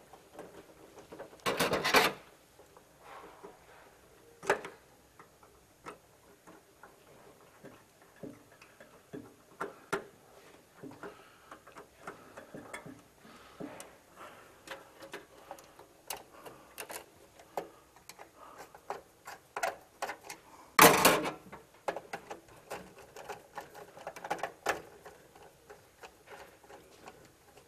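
Irregular small clicks, ticks and rattles of cables and leads being handled and pushed back into an electrical switchboard, with two louder bursts of clatter, one about two seconds in and one about three-quarters of the way through.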